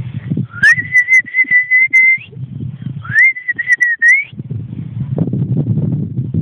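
A person whistles twice to call a puppy: each whistle slides up and is then held on one high note, and the second turns up again at its end. Low rumbling noise runs between the whistles and after them.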